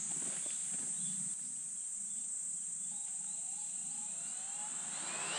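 A steady, high-pitched chorus of insects buzzing. Near the end a motor starts winding up with a rising whine.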